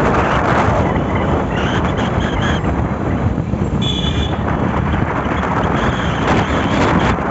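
Wind buffeting the microphone on a moving motorcycle, over the bike's engine and road noise. A short high-pitched beep sounds about four seconds in.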